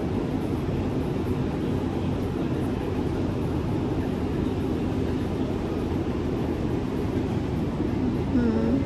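Steady low rumbling background noise with no distinct events, typical of an indoor market hall's ventilation and crowd din. A short hummed voice sound near the end.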